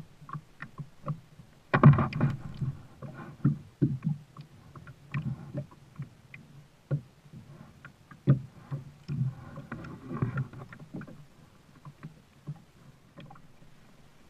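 Kayak being paddled: irregular paddle splashes and hollow knocks against the hull, with the loudest cluster of knocks about two seconds in.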